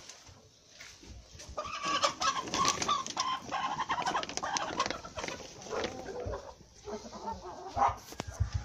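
Chickens calling in the yard: a drawn-out, wavering call from about a second and a half in that lasts a few seconds, then shorter calls near the end, with scattered sharp clicks over it.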